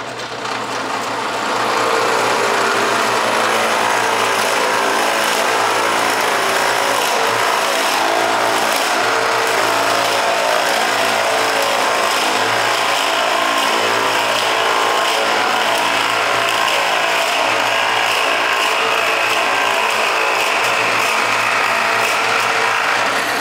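Drill press running at speed while a large bit is fed slowly into a pine 2x4: a steady mechanical whir with the rasp of the bit cutting wood. It builds over the first second or two, then holds steady.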